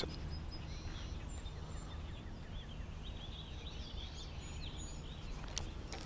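Quiet outdoor background noise, a steady low hush, with faint birds chirping in the distance.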